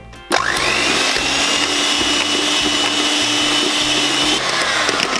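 Electric hand mixer whipping cream in a plastic beaker. The motor starts abruptly about a third of a second in, runs at a steady high whine, then slows with falling pitch near the end.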